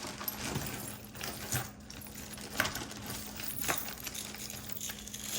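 Costume jewelry clinking and rattling as pieces are handled and sorted, with a few sharp metallic clicks.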